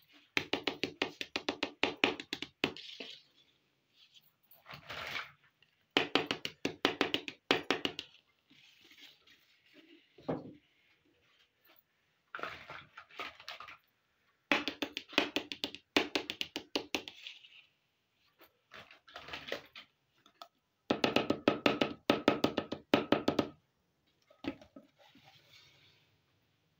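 Small plastic miniature toy kitchen pieces being handled and set down on a cloth-covered surface. There are repeated bursts of rapid clattering taps, each lasting a second or two, with softer rustling in between.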